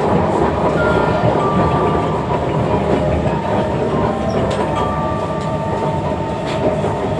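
Inside a Kawasaki Heavy Industries C151 MRT train carriage running along the track: a steady, loud rumble of wheels on rail, with faint whining tones that come and go.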